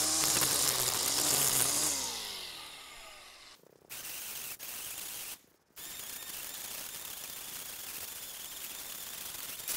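String trimmer running at full speed cutting weeds, then let off and spinning down, its whine falling in pitch and fading over about a second and a half, starting about two seconds in. After two brief dropouts, a steady hiss for the rest.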